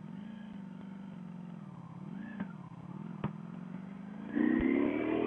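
Ducati Panigale V4S's 1103 cc V4 engine running at low revs in first gear, with a single click about three seconds in. About four seconds in the throttle opens and the engine note gets louder and rises in pitch.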